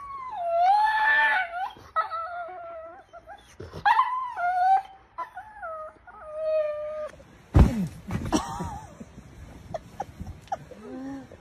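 Pit bull–type puppy howling and whining in a run of long, wavering wails that bend up and down in pitch, about four calls over some seven seconds. After that come a few sharp thumps and knocks and short squeaks.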